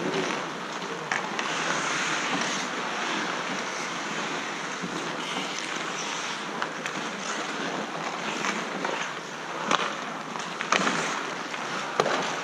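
Ice hockey play: a steady hiss of skate blades scraping the ice, with sharp clacks of sticks and puck, several of them near the end.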